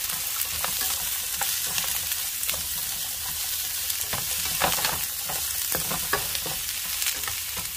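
Pieces of roast pork with chopped onion and garlic sizzling steadily in a hot frying pan as they are stir-fried, with frequent short scrapes and taps of a plastic slotted spatula against the pan.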